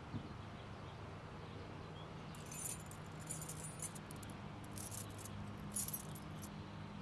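A bunch of keys jangling in a hand in several short bursts, over a low steady hum.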